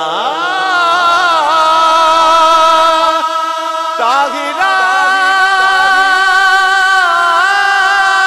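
A man sings a Punjabi naat into a microphone over a sound system, drawing out long held notes that waver and slide in pitch. There is a short break about four seconds in, then another long held note.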